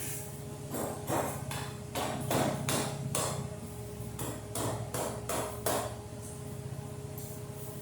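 A hammer striking steel, a quick uneven run of about a dozen blows, tapping steel channel cross members into line, over a steady low hum.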